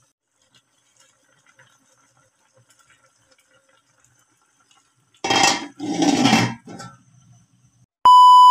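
Faint crackle of crab, coconut milk and greens simmering in a wok, then, about five seconds in, two loud clattering scrapes of a utensil worked in the pan. Near the end a steady high test-pattern beep starts abruptly.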